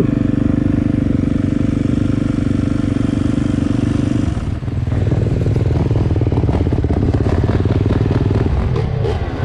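Dirt bike engines running at idle, a steady engine note that changes about halfway through, after a brief dip, to a rougher, busier note as another bike's engine comes to the fore.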